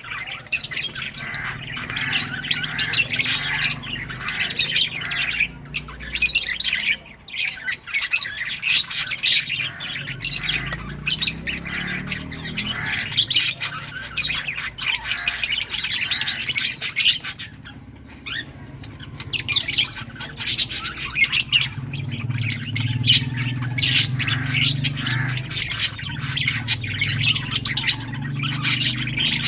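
A flock of lovebirds chirping and squawking, with rapid, overlapping shrill calls and only a brief lull about two thirds of the way through.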